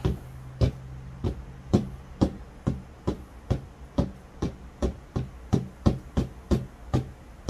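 A square soap mold full of freshly poured cold process soap batter tapped again and again on a tabletop: a steady run of knocks, about two to three a second, that brings air bubbles up out of the batter.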